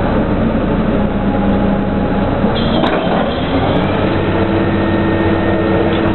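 Steady loud drone of drilling rig machinery during a pipe connection, with a single metallic clank about three seconds in.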